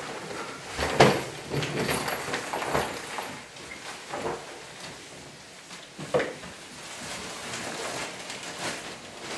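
Knocks and rustling as a suitcase is handled, opened and searched and clothes are pulled out of it; the sharpest knock comes about a second in, another about six seconds in.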